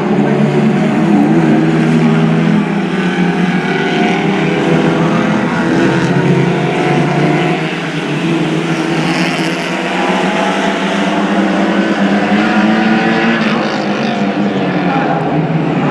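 Several small racing cars' engines running hard together, a blend of overlapping engine notes that rise and fall in pitch as the cars accelerate and lift.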